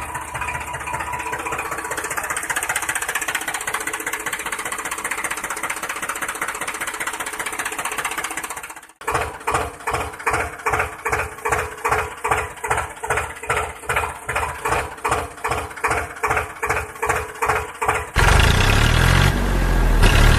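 Tractor engine sound running steadily. After an abrupt cut about nine seconds in, it chugs in an even pulse of about two beats a second, and near the end it turns louder and rougher.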